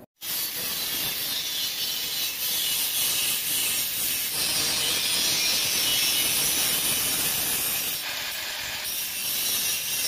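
Handheld angle grinder with a cutting disc slicing through the side of a perforated sheet-steel cable tray: a steady, hissing grind of disc on metal, easing slightly about eight seconds in.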